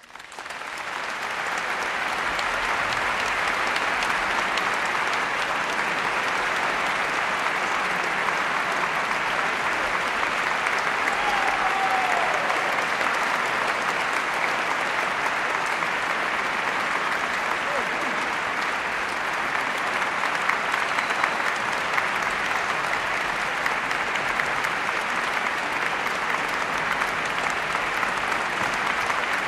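Concert hall audience applauding after a live orchestral and vocal performance: dense, steady clapping that breaks out at the start and builds to full strength within about a second.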